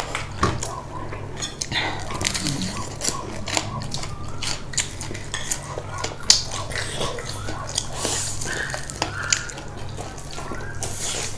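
Close-up eating sounds: wet chewing and mouth smacks with many small irregular clicks, over a low steady hum.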